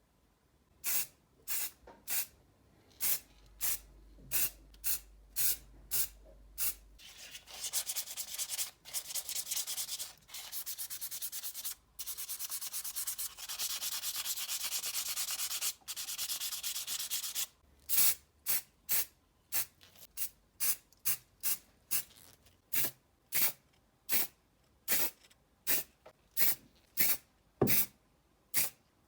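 Sanding or rubbing strokes on a part, done in short separate strokes about one to two a second. In the middle there is a stretch of roughly ten seconds of faster, continuous rubbing, with a brief pause about twelve seconds in, before the separate strokes resume.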